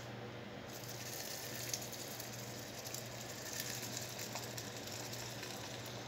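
Thick papaya-and-banana smoothie pouring from a blender jar through a plastic strainer into a glass jug: a soft, quiet splashing and trickling that starts about a second in.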